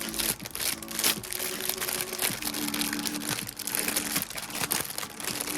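Plastic packaging crinkling and crackling in the hands as a blind-box wrapper is opened, over soft background music.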